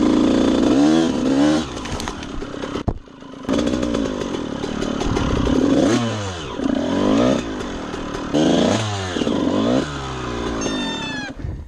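Honda CR125's 125cc two-stroke single-cylinder engine revving up and down over and over as the bike is ridden slowly through tight trail, the engine note briefly dropping away about three seconds in and falling off sharply near the end.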